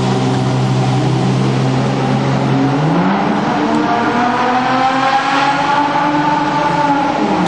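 Mitsubishi FTO's engine inside a road tunnel, holding a steady note and then revving up hard about three seconds in. The pitch climbs for several seconds before dropping off near the end.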